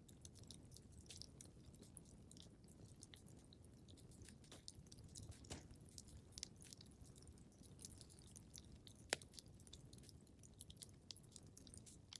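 Wood fire crackling faintly: a steady low rumble of burning with frequent small, irregular crackles and snaps, and one sharper pop about nine seconds in.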